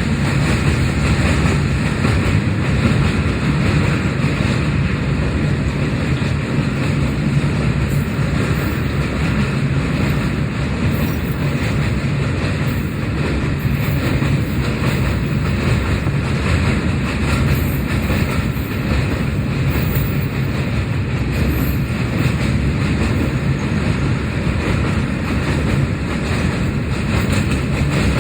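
Train in motion: a loud, steady rumble with a low hum underneath.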